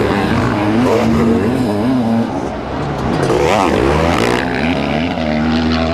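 Several racing sidecar motocross outfits' engines revving hard. The pitch climbs and drops again and again as the riders open and shut the throttle, with a sharp rise and fall near the middle.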